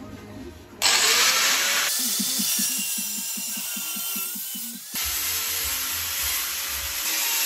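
Angle grinder cutting into a mild steel box, starting about a second in. The sound changes abruptly twice as the cut jumps between passes. Background music plays underneath.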